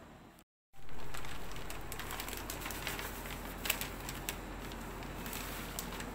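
Plastic crinkling and rustling under hands, with scattered small crackles and clicks. The sound drops out for a moment near the start.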